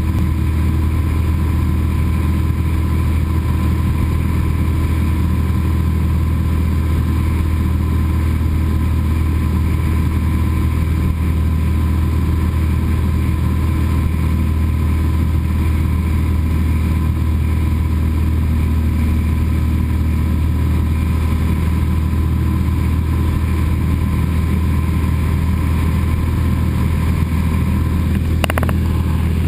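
Cessna 172's piston engine and propeller droning steadily in flight, heard inside the cabin, with a steady low hum and no change in pitch. A brief click sounds near the end.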